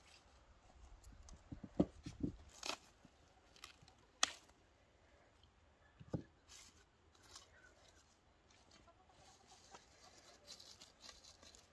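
A roll of kitchen wrap being unrolled and torn, with rustling and a few sharp knocks against the table, and short clucks from chickens.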